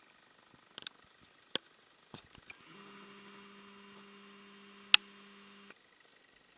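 Scattered light clicks and taps from handling a small diecast model airliner, with one sharp click, the loudest, about five seconds in. Under them a steady hum starts just before three seconds in and stops abruptly about three seconds later.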